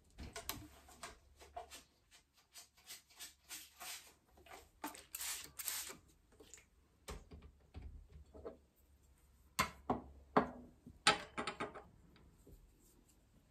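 Paintbrush working on sketchbook paper: an irregular run of short scratchy strokes and clicks, with a longer, louder scrubbing stroke about five seconds in and a cluster of sharper taps after about ten seconds.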